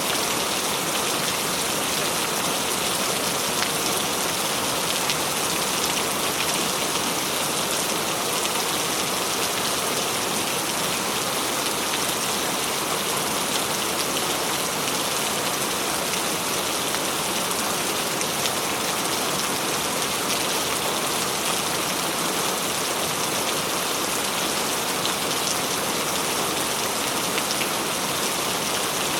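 Steady heavy rain falling and pattering on surfaces, an even, unbroken hiss with scattered drop ticks.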